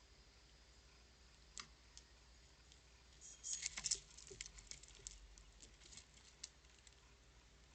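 Faint scattered clicks and taps, with a busy cluster of them about three and a half seconds in: squirrels scrabbling and feeding on a bird feeder.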